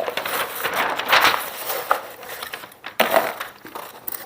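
Stiff pink butcher paper rustling and crinkling in uneven surges as it is handled and laid out for wrapping a rack of ribs.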